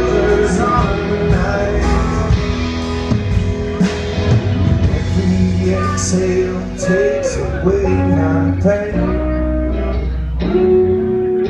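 Live band music: electric guitar with drums playing an instrumental passage, no singing.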